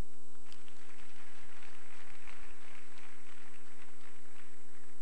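Steady electrical mains hum in the sound system, with a faint hissing noise over it from about half a second in until near the end.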